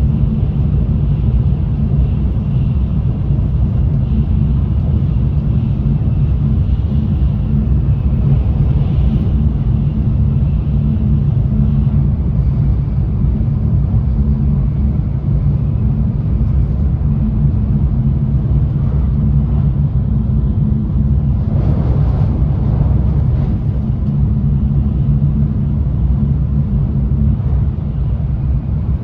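Running noise of a Tokaido Shinkansen N700A at speed, heard inside the passenger car: a steady, heavy low rumble of wheels and track with a faint high whine in the first half. About twenty-two seconds in, a brief rushing swell rises over the rumble and fades.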